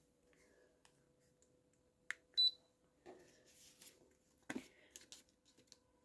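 Aroma diffuser giving one short high electronic beep about two seconds in, just after a faint click: the unit acknowledging a remote-control button press. A light knock follows near the end, over a faint steady hum.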